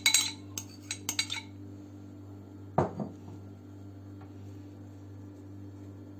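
A metal spoon clinking and tapping against a glass bowl as cheese and parsley filling is scraped out of it, a quick run of clicks in the first second and a half, then one louder knock about three seconds in. After that, only the soft sound of the spoon spreading the filling over the pastry.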